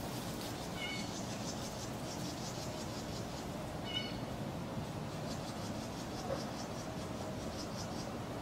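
Outdoor ambience: a steady low hiss, with a short high-pitched animal call about a second in and again around four seconds, and fast high chirping trills in between.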